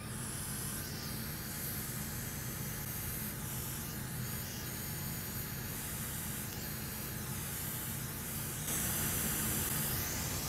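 A hot-air rework station blows a steady hiss while a replacement capacitor is reflowed onto a laptop motherboard. The hiss grows louder a little over eight seconds in, over a low steady hum.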